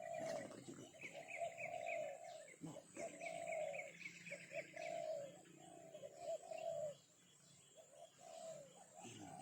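Birds calling: a string of low, cooing notes repeated over and over, with two runs of quick high chirps over them in the first half; the calling gets quieter about seven seconds in.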